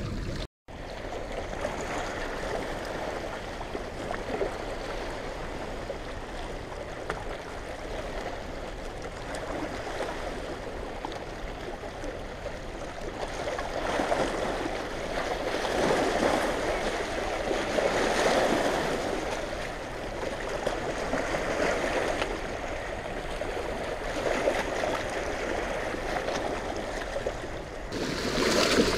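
Rushing, churning water of a dam's tailrace release, washing against riprap rocks, swelling louder in surges.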